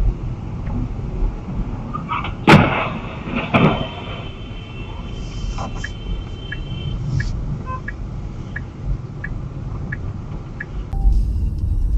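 Steady road and engine rumble inside a moving car, with one sharp, very loud bang about two and a half seconds in and a smaller one about a second later. Light, evenly spaced ticks follow, and music starts near the end.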